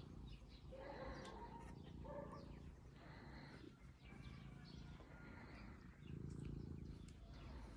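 Faint purring of a domestic cat being stroked, a low rough rumble that swells about six seconds in, with a few short bird chirps over it.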